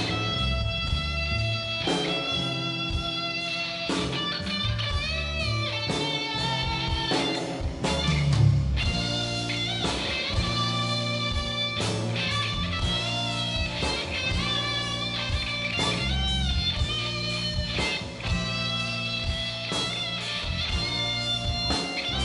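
Live rock band playing: an electric guitar plays a lead line with string bends over bass guitar and drums.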